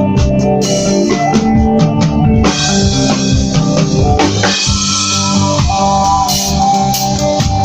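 Reggae band music: drum kit keeping a steady beat under electric guitar, bass and keyboard chords, with cymbals coming in about two and a half seconds in.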